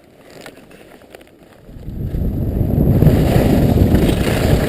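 Wind buffeting a camera microphone while skiing downhill: faint at first, it turns into a loud low rumble from about two seconds in as speed builds.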